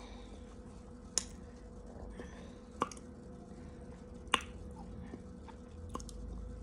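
Sharp, crisp clicks of raw cornstarch being eaten and scooped with a plastic spoon: three loud clicks about a second and a half apart, then a few fainter ones near the end.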